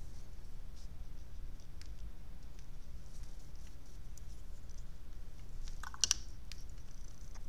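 Faint dabbing and scraping of a paintbrush on a plastic watercolour palette, with a few soft ticks and one sharper clack about six seconds in, over a low steady hum.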